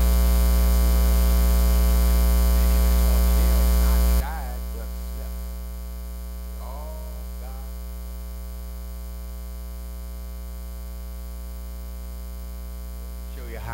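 Loud, steady electrical mains hum with a buzzy stack of overtones in the microphone and sound-system feed. It drops sharply in level about four seconds in and carries on quieter.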